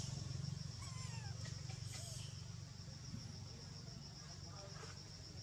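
Forest ambience: a steady high insect drone over a low hum, with a few short falling chirps about a second in.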